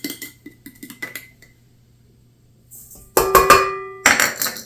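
Kitchen utensils clinking against a mixing bowl, a few light clinks at first, then, after a short pause, louder clattering near the end.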